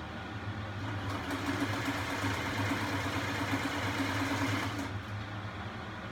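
Sewing machine running in one steady stitching run of about four seconds, starting about a second in and stopping near the end, over a constant low hum.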